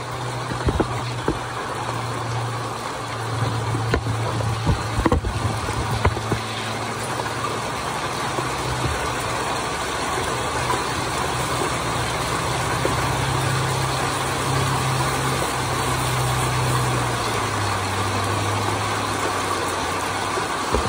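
Propane-fired Devil Forge melting furnace burner running steadily while heavy rain falls. The burner's low hum drops slightly in pitch about three-quarters of the way through, and there are a few light knocks in the first six seconds.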